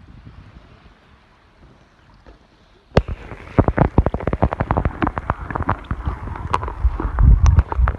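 Faint water hiss, then about three seconds in a sudden loud burst of dense crackling clicks and low rumbling as a phone is plunged underwater: water sloshing and bubbling against the submerged phone's microphone.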